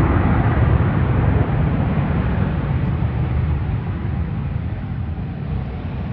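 Steady noise of a Diamond DA20 light aircraft's engine running, slowly fading over the second half.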